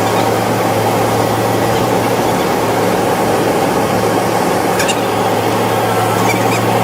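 Heavy diesel machinery running steadily, a constant low engine hum under a loud even rushing noise, with no change in pitch or load.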